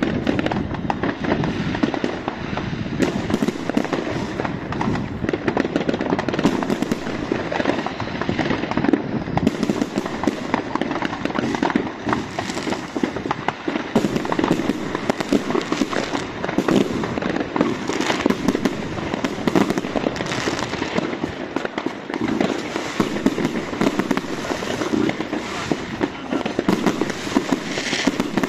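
Many fireworks going off at once: a continuous, dense barrage of overlapping firecracker bangs, crackles and rocket bursts with no pause.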